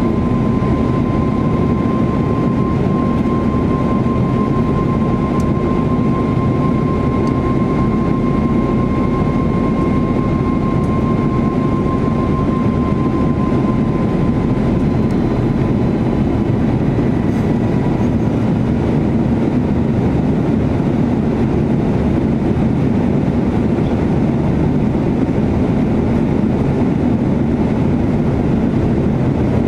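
Cabin noise inside an Airbus A340-600 climbing after take-off: the steady roar of its four Rolls-Royce Trent 556 engines and the rushing air. A thin, steady whine rides on top and fades away a little past the middle.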